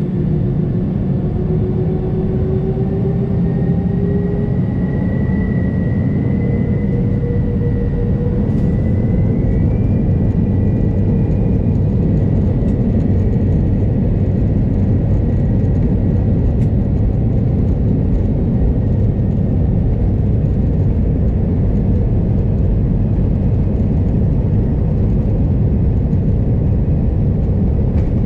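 Airbus A320 jet engines heard from inside the passenger cabin, spooling up: several whining tones climb slowly in pitch over the first ten seconds or so as the engine noise builds, then settle into a steady, loud roar.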